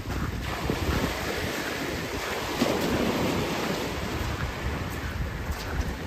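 Small sea waves breaking and washing up a shingle beach, one wash swelling about halfway through, with wind buffeting the microphone.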